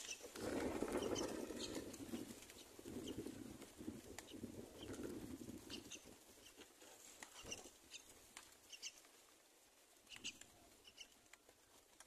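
Rustling of a dry straw nest and a flutter of wings as an adult myna comes onto the nest beside its chicks. Short, faint, high chirps are scattered throughout, and the rustling dies down after about six seconds.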